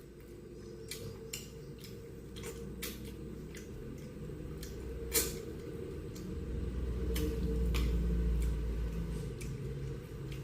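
A person chewing and eating village-chicken curry close to the microphone: irregular wet mouth clicks and smacks over a low rumble that swells about two-thirds of the way through.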